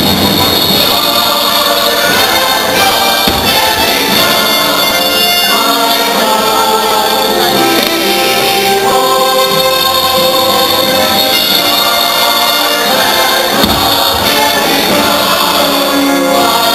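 A choir singing long held notes with musical accompaniment, the soundtrack of a fireworks show. A dull firework bang comes about three seconds in and another near the end.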